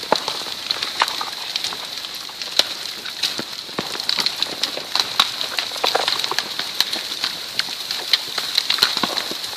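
Spoil-heap landslide on the move: a continuous hiss with many irregular sharp cracks and clicks of soil and rock breaking and tumbling.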